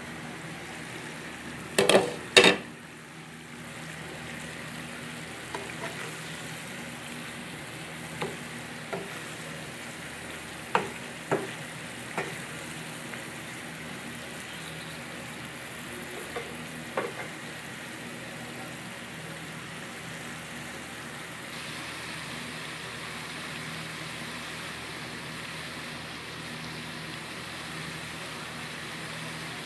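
Summer squash adobo sizzling and simmering in a frying pan. A glass pan lid clatters twice about two seconds in, then a wooden spatula stirs and taps against the pan several times.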